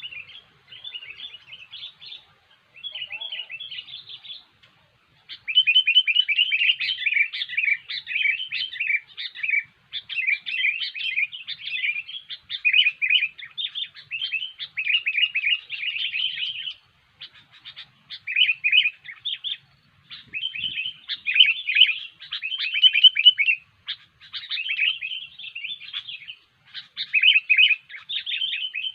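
Sooty-headed bulbul (kutilang) singing vigorously in fast, chattering phrases of rapid notes, broken by short pauses. The song gets louder about five seconds in.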